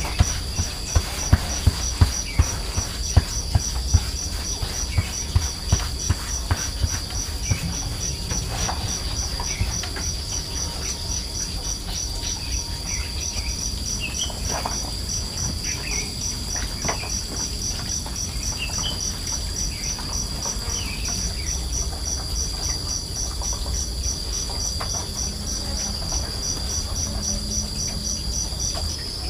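Insects, crickets or similar, calling steadily: a continuous high buzz with a faster pulsed chirp on top at about three pulses a second. A series of sharp knocks sounds in the first several seconds, and a few short high chirps come around the middle.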